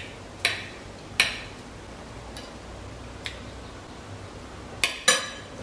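Spoon clinking and scraping against a plate a few times as food is scooped up, with two sharper clinks in quick succession near the end.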